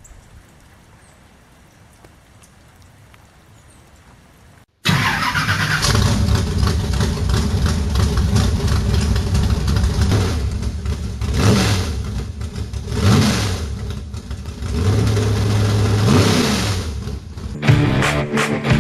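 A race car engine running loud, its pitch rising and falling several times as it revs up and backs off, after about five seconds of faint hiss. Rock guitar music starts near the end.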